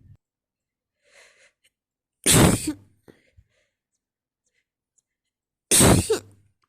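Two loud, sudden sneezes about three and a half seconds apart during a sneezing fit, with a faint breath in before the first.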